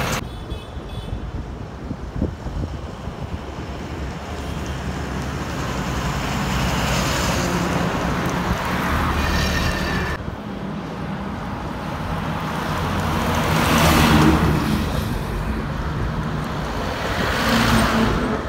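Highway traffic passing close by: lorries and a car go past one after another, each one's engine and tyre noise swelling and then fading. The loudest pass-by comes about three-quarters of the way through. The sound changes abruptly about halfway, at a cut.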